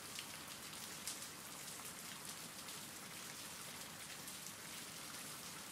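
Steady rain falling: an even, faint hiss with fine scattered drop ticks.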